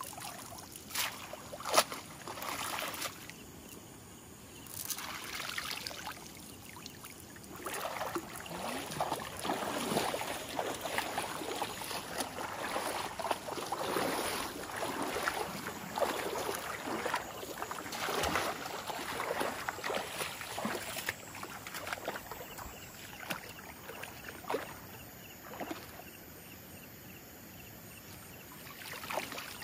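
Shallow water splashing and sloshing as a wet cast net is gathered, cast and hauled by someone wading, with water dripping off the mesh. There is a sharp knock about two seconds in.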